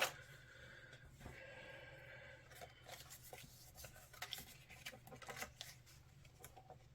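Faint handling of paper and cardstock on a craft desk: a sharp click at the start, then scattered light taps and scrapes, with a soft drawn-out scraping in the first couple of seconds.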